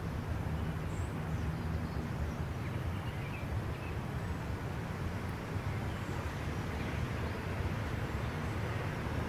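Steady low outdoor background rumble, with no distinct event standing out.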